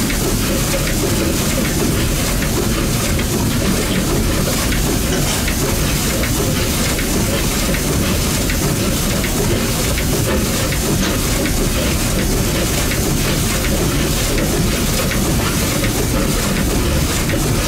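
Compound marine steam engine running steadily, a continuous clatter of its rods, crossheads and bearings with hiss.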